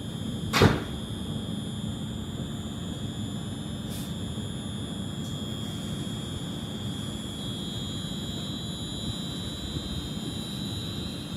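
Class 350 Desiro electric multiple unit standing at the platform, with a steady high-pitched whine from its onboard electrical equipment that steps up slightly about seven seconds in, over a low rumble of wind on the microphone. A single sharp knock about half a second in, and a fainter click about four seconds in.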